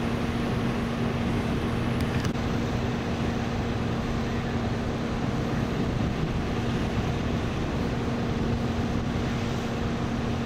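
Steady hum of an idling vehicle engine, an unchanging low drone over a constant rushing noise.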